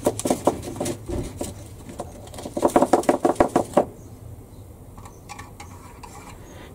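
Hard plastic model-kit parts being handled, a quick run of light clicks and rattles. The clicks are densest around the middle and die down after about four seconds.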